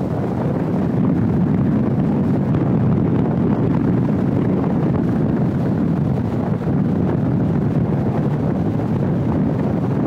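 Steady wind rush buffeting the microphone of a camera on a moving vehicle, a constant low rumble with no distinct events.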